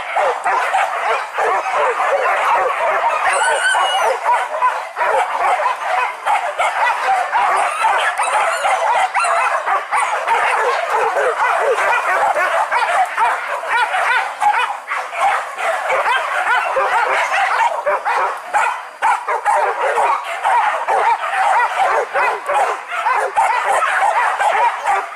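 A pack of hunting dogs barking and yelping without a break, many voices overlapping, with some whimpering.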